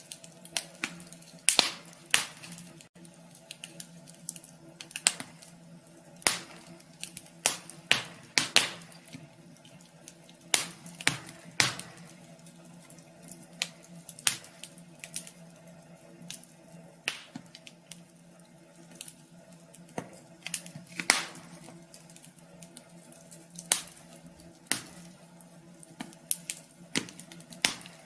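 Wood fire crackling in a wood stove: sharp pops and snaps at uneven intervals, roughly one a second, over a faint steady hum.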